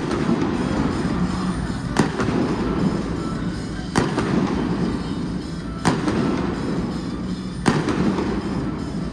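Indoor stadium fireworks going off in five sharp bangs, about one every two seconds, each echoing through the dome, over music playing on the stadium sound system.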